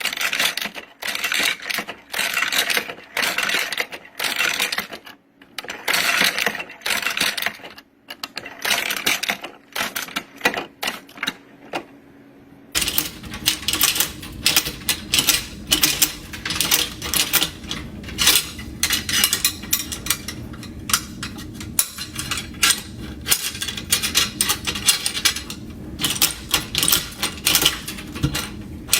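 Hand-operated ammunition belt loader being cycled, cartridges clicking and clacking as they are pressed into the links of a machine-gun belt in quick, uneven strokes. About halfway in, a steady low background noise joins the clatter.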